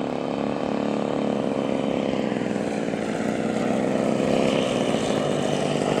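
Two-stroke 50cc gasoline engines of giant-scale radio-control aerobatic planes running in flight, a steady propeller buzz whose pitch shifts slowly as the planes fly past.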